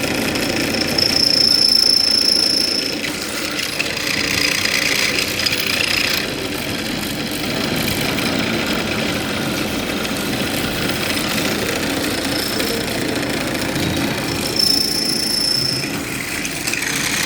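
Automatic drilling machine running steadily, with a high-pitched squeal from the drill cutting into the workpiece about a second in and again near the end.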